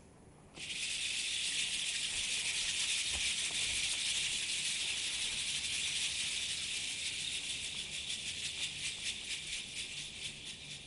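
A percussion shaker shaken continuously as a stage sound effect: a steady high hissing rattle that starts about half a second in. It turns into a fast pulsing shake in its second half and fades near the end.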